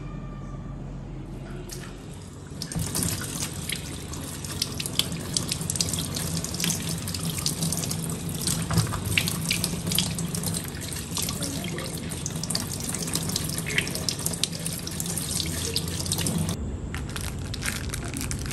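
Kitchen tap running into the sink, water splashing over a hand being rinsed; the water starts a couple of seconds in and stops near the end.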